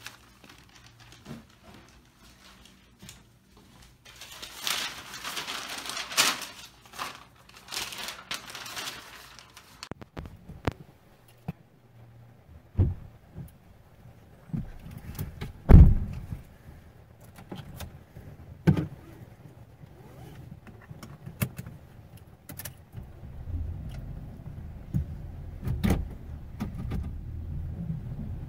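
Getting into a Toyota minivan and setting off: a hissing stretch of noise, keys jangling and several sharp thumps including the car door shutting. Then the engine rumbles steadily as the van drives away.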